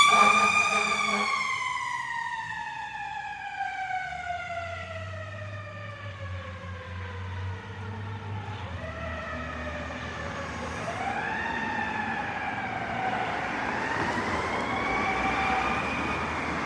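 Fire apparatus siren passing and moving away: one long wail that falls slowly in pitch and fades over the first half, then fainter rising and falling wails.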